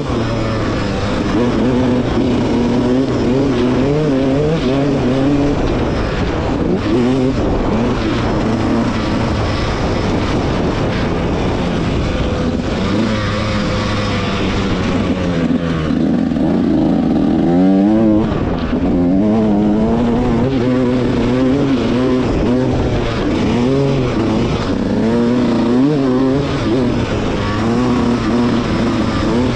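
Yamaha YZ125X's 125cc single-cylinder two-stroke engine being ridden hard on the track, its pitch rising and falling again and again with throttle and gear changes, with one sharp climb in revs a little past halfway.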